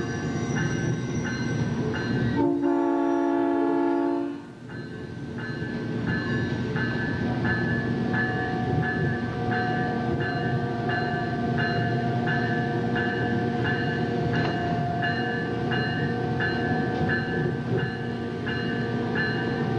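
Electric South Shore Line commuter train running down street trackage. A horn blast of about two seconds starts a couple of seconds in and cuts off sharply, then a warning bell rings steadily at about one and a half strokes a second over the running noise of the train. The horn and bell are the usual warnings for running in the street.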